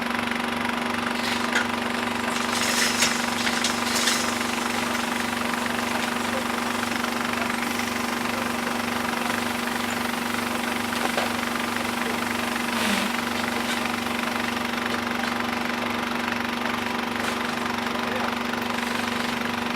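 A motor running steadily with a constant hum and a low pulsing beat, with a few short knocks and clatters in the first few seconds.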